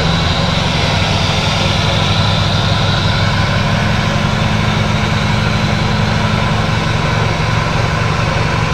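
Off-road 4x4's engine running steadily at an even pitch while the vehicle works through deep mud, with a faint high whine above it.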